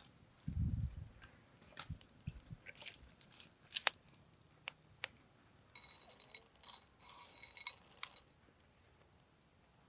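Scattered small knocks, clicks and crunchy rustles of food and utensils being handled, with a low thump just after the start and a denser stretch of rustling from about six to eight seconds in.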